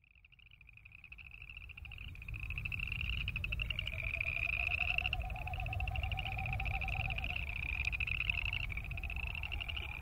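A chorus of boreal chorus frogs calling: overlapping rapid, rasping trills, several voices at once, fading in over the first couple of seconds. A lower pulsing sound rises and falls in the middle, over a steady low rumble.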